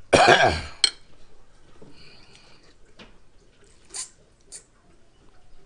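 A man's short wordless vocal outburst right at the start, reacting to the heat of spicy noodles, followed by a sharp click and then faint mouth, sipping and swallowing sounds as he drinks.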